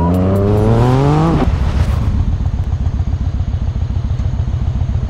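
Motorcycle engine pulling hard, its pitch climbing steadily for about a second and a half, then a cut to a motorcycle engine idling with a fast, even, low pulsing beat.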